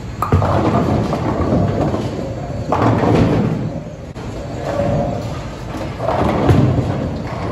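Bowling alley noise: bowling balls rolling and pins crashing, the rumble rising in three loud surges.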